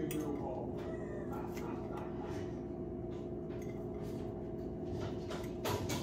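A few light clinks of utensils against dishes as food is served onto a plate, over a steady low hum with a constant pitch.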